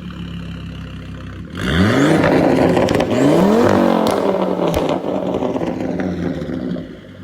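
2005 Volvo S60 T5's turbocharged five-cylinder engine idling, then revved up sharply twice, about a second and a half in and again about three seconds in. The revs fall back and it runs fast for a few seconds before dropping back to idle near the end.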